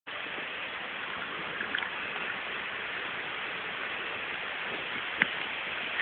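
Steady rushing noise of a bicycle riding fast on a paved road: wind on the microphone and tyres rolling on asphalt. A few light ticks, then a sharp click about five seconds in.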